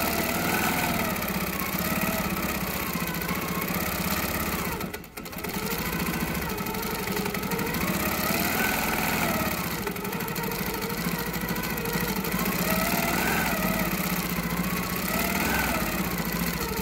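Quilting machine running as it stitches, its motor whine rising and falling in pitch every couple of seconds as the stitching speeds up and slows; it stops briefly about five seconds in.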